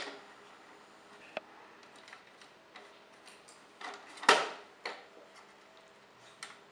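A kitten pawing at a broken CD-ROM drive, knocking its plastic casing and loose front tray piece: scattered clicks and knocks of light plastic, the loudest a knock about four seconds in.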